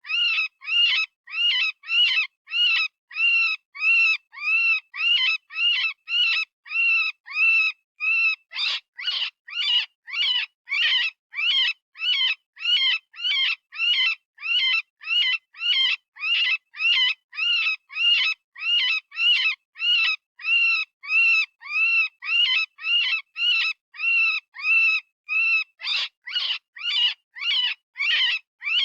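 Software-generated rabbit distress call, of the kind used as a predator-hunting call. It is a steady string of short, high, scream-like cries, about two a second, each rising and then falling in pitch.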